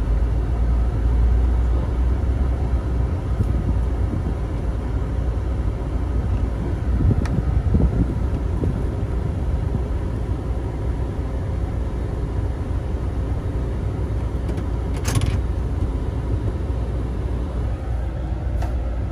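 GMC Yukon Denali's V8 idling steadily, heard from inside the cab, with no surging or jumping in the idle. There are a couple of light clicks from handling in the cab.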